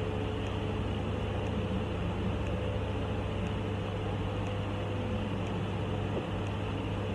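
Steady low hum and hiss of room noise, with faint ticks about once a second.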